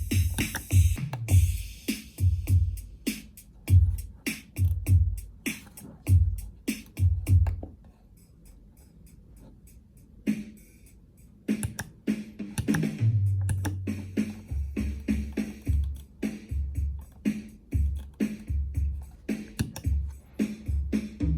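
BeatBuddy drum machine pedal playing a drum pattern, with a steady kick and hi-hat beat. About eight seconds in it stops for a couple of seconds, then a new pattern starts with longer, deeper low notes.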